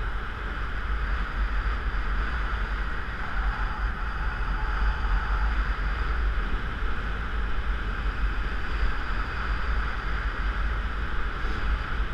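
Airflow rushing over a harness-mounted camera's microphone in paraglider flight: a steady wind hiss over a heavy low rumble of buffeting.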